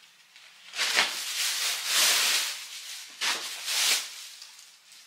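Thin clear plastic bag rustling and crinkling as it is handled, in two spells: a longer one starting about a second in and a shorter one just past the middle.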